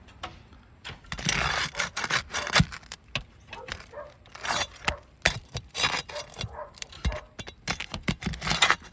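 Metal flat pry bar working under asphalt roof shingles to pull the fasteners: irregular scraping with sharp clinks and knocks.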